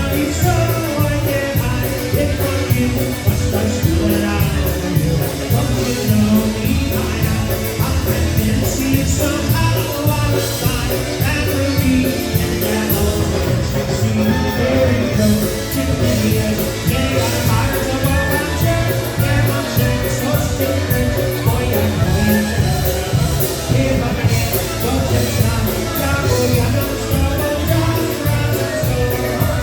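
Live polka band playing a song with a singer, over a steady beat.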